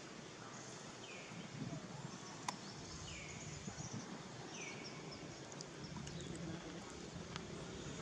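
Outdoor ambience with three short, high-pitched calls that each fall in pitch, spaced about one and a half to two seconds apart. A single sharp click comes about two and a half seconds in.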